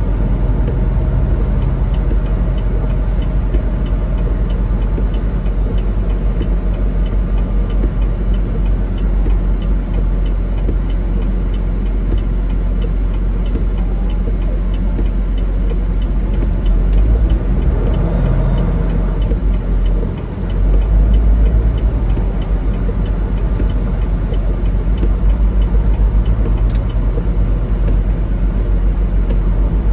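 Semi-truck's diesel engine running steadily with road rumble. About two-thirds through, the engine note rises, drops out briefly and comes back louder.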